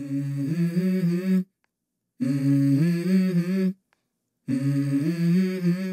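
A solo voice humming a short melody of held notes in three phrases, each about a second and a half long, with dead silence between them.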